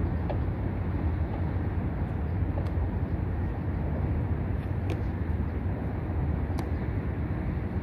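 Steady low outdoor rumble with a few faint clicks.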